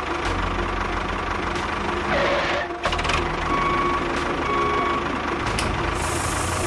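Small electric motor of a miniature model construction vehicle running steadily, with a few clicks.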